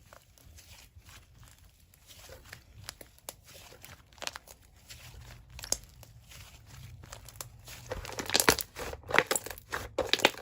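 Slime being squished, poked and stretched by hand, giving sticky crackling clicks and pops. The clicks grow denser and louder about eight seconds in.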